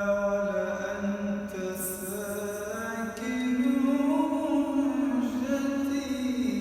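A man singing an Arabic praise song to the Prophet, holding a long drawn-out vowel in a slow, ornamented chant, the pitch sliding up a step about three seconds in.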